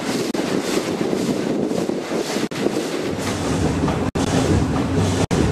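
A steam locomotive running at speed, heard from its cab with heavy wind buffeting the microphone; a deeper rumble comes in about halfway through, and the sound drops out for an instant a few times.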